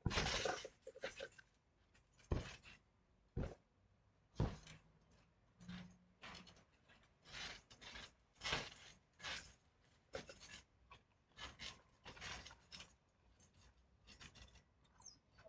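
Thumps and rubbing on a trampoline mat as a person shifts and crawls across it, in irregular short bursts with a few heavier knocks, thinning out near the end.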